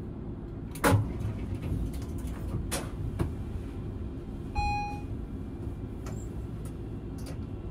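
A standing tram hums steadily and low from its onboard equipment. A knock comes about a second in, the loudest sound here, and a few fainter clicks follow. Just past the middle there is one short electronic beep.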